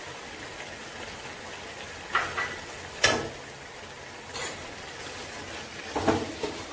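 Chicken masala sizzling quietly in a pan, with a spoon clinking against the pan a few times, the sharpest about three seconds in. Near the end a spatula stirs and scrapes through the mixture.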